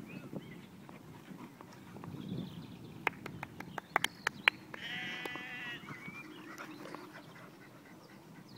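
A few sharp clicks about three to four and a half seconds in, then a single wavering, bleat-like animal call lasting about a second, over a low outdoor rumble.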